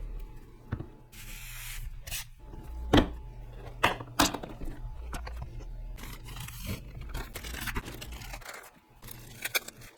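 A box and its packaging being opened and handled: scraping and tearing noises broken by sharp clicks and knocks, the loudest about three and four seconds in.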